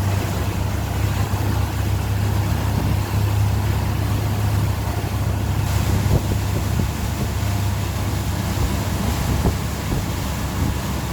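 Tow boat's engine running steadily at speed, a constant low drone under rushing wind and water noise that turns hissier about halfway through.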